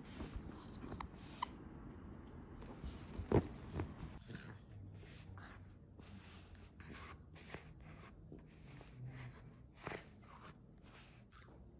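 French bulldog puppy chewing and gnawing on his toys: faint, irregular crunching and clicking, with one louder knock a little over three seconds in.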